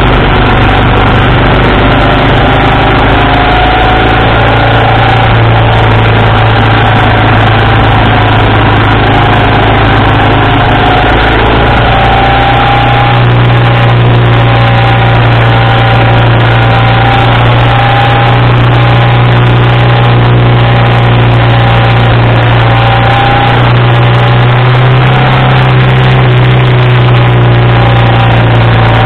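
1987 BMW R80RT's air-cooled flat-twin boxer engine running steadily at road speed, heard close up with wind rushing over the microphone. The engine note rises slightly about halfway through.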